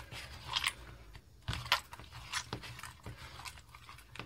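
Hands kneading wet, sticky homemade slime, giving a string of irregular squelches and sticky smacks as the lump is pressed and pulled apart.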